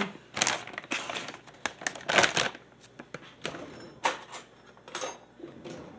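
A plastic pouch crinkling and rustling in short bursts as it is handled and opened. Near the end come a few light clicks of utensils rattling in a kitchen drawer.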